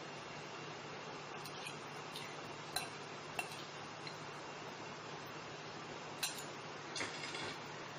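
A metal spoon and glass serving bowls clinking and knocking as they are handled: a handful of short sharp clinks spread through the stretch, over a steady background hiss.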